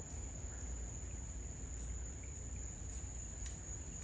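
Night insects trilling: one steady, high-pitched drone with no breaks, over a low rumble.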